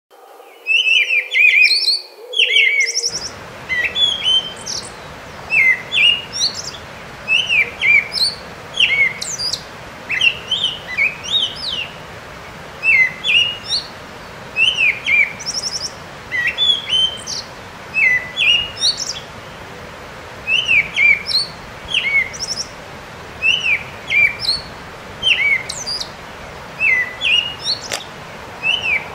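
Birdsong: a steady run of short, sharp chirps in quick clusters, with the odd brief higher trill, over a steady background noise.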